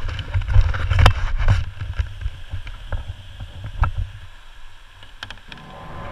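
A whitewater kayak moving through shallow water over gravel: a low rumble of water and wind on the mounted camera, with a handful of sharp knocks that thin out over the first few seconds. Music fades in near the end.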